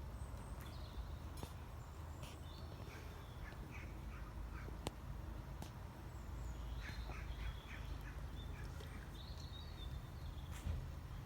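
Birds chirping in short bursts of quick high calls, a few clusters spread through, over a steady low rumble, with one sharp click about halfway.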